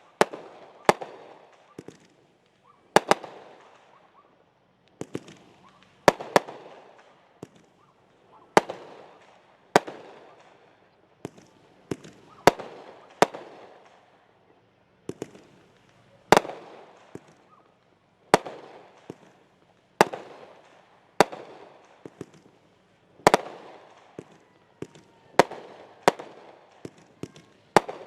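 Consumer aerial fireworks going off in a string of sharp bangs, roughly one every one to two seconds, each trailing off before the next.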